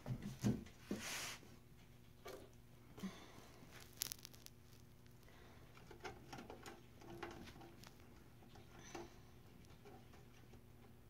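Faint handling noises from a resin 3D printer being put back together. A few knocks and a scrape as the casing is set in place, then scattered small clicks and rustles as the wires in the electronics bay are gathered and arranged.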